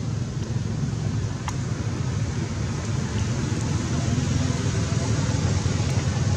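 Steady low rumble of outdoor background noise, even throughout, with a faint click about one and a half seconds in.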